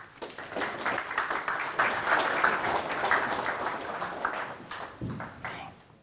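Audience applause, many hands clapping: it builds over the first second, holds, thins out toward the end and then cuts off abruptly. A low thump comes about five seconds in.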